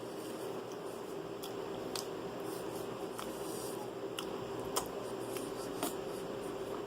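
Eating noises: scattered sharp clicks and small wet sounds of food being chewed and handled, the loudest clicks about five and six seconds in, over a steady low hum.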